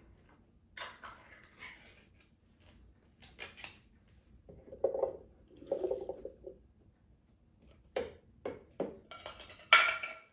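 Canned chickpeas and a little of their liquid tipped from a metal can into a glass bowl: scattered small clicks and scrapes, a run of soft wet plops in the middle, then sharper clinks, the loudest a ringing clink of the can against the glass just before the end.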